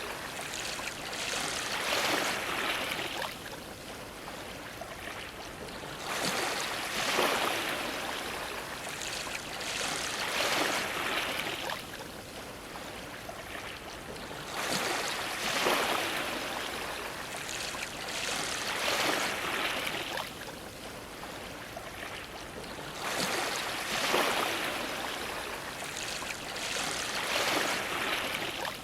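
Sea waves splashing against a dock, coming in surges about every eight or nine seconds, each surge bringing two or three splashes, with quieter lapping water between.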